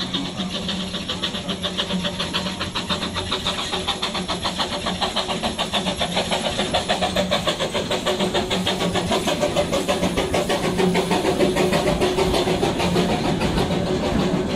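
Small narrow-gauge steam locomotive approaching and passing at low speed, its exhaust chuffing in quick, even beats that grow louder as it draws near.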